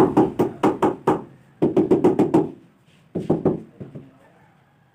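Quick knocking taps on tile, about four or five a second, in three bursts separated by short pauses, the way tiles are tapped down into their mortar bed when setting a countertop; it goes almost quiet near the end.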